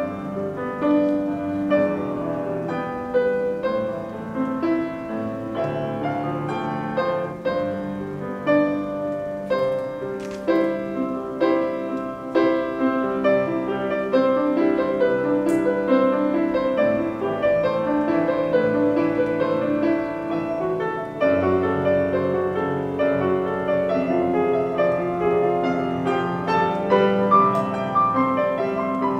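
Grand piano played solo, an arrangement of a pop ballad with many flowing notes; a deeper bass line comes in about 21 seconds in.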